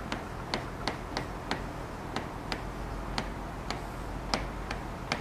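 A pen or stylus clicking on the glass screen of an interactive display board as a word is handwritten: sharp, irregular ticks about two or three a second, over a steady low hum.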